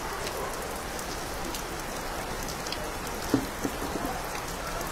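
Steady rain falling, with a few brief low knocks a little past three seconds in.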